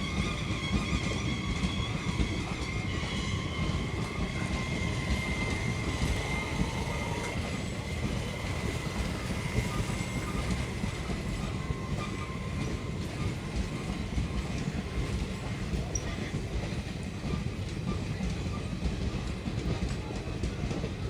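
Passenger train coaches rolling past with a dense wheel rumble and clatter on the rails, slowing for a halt. A steady high brake squeal rings over it and fades after the first several seconds.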